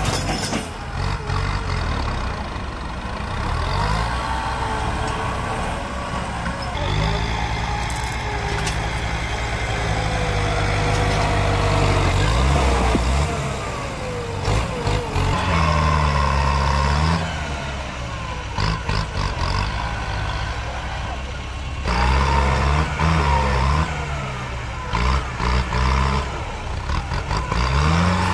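Kubota tractor's diesel engine working hard under load as its front blade pushes against a tree stump. Several times, mostly in the second half, the engine note dips as it lugs down and then rises again.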